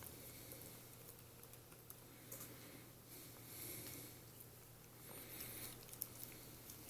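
Faint breathing of a sleeping Chihuahua, a soft breath about every second and a half, with a few small clicks near the end.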